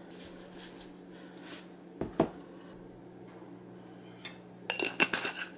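A metal wire whisk clinks once against a stainless steel pot about two seconds in, then there is a quick run of light clinks and rattles near the end, over a faint steady hum.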